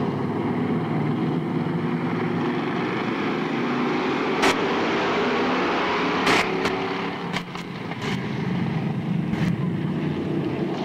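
Several dirt-track stock car engines running together at racing speed, a layered, steady engine drone, with a few sharp knocks about halfway through.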